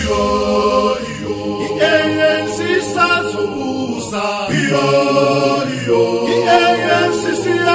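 Group of voices singing together a cappella, a chant-like song in harmony with no instruments.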